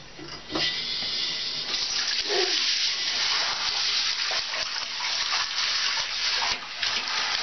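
Water running steadily from a handheld shower head into a bathtub, spraying over a wet cat, starting about half a second in.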